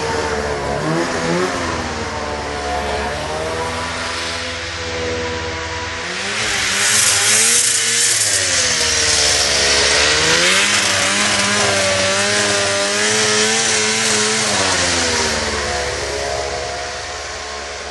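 Snowmobile engine running out of sight, its pitch rising and falling as it revs. It grows louder with a rushing hiss through the middle of the stretch, then eases back.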